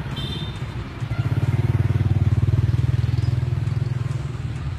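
A motor vehicle engine running, growing louder about a second in and easing off near the end.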